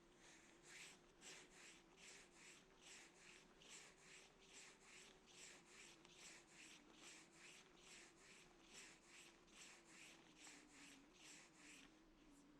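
A dog panting softly, short hissy breaths at an even pace of about two a second.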